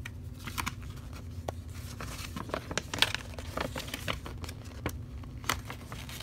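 Paper crackling and rustling in many irregular sharp ticks as a folded paper sheet is opened out and handled.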